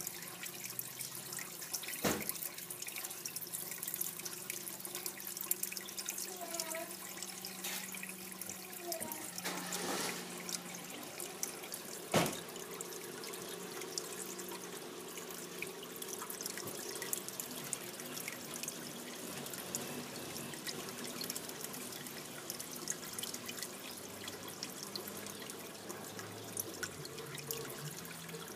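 Water trickling and dripping steadily into a fish tank, with fine splashing throughout. Two sharp knocks stand out, about two seconds in and about twelve seconds in.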